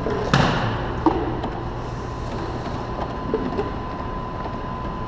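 Claw machine running through a play: a steady hum with a thin high tone, a sharp clack about a third of a second in and a smaller clack about a second in.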